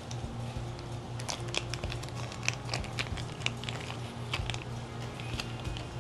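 Small plastic craft pieces and packaging being handled: irregular light clicks, taps and crinkles, over a steady low hum.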